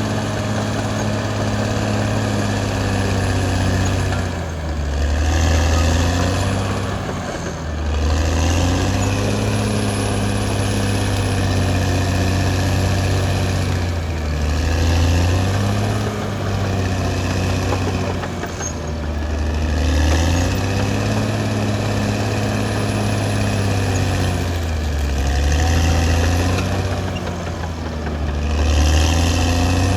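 Caterpillar D6R XL bulldozer's diesel engine running hard, its note dipping and recovering every few seconds as it works.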